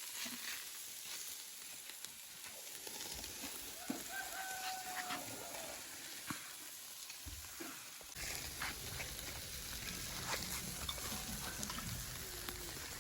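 Meat sizzling on a grill over an open fire, a steady hiss with scattered crackles and clicks.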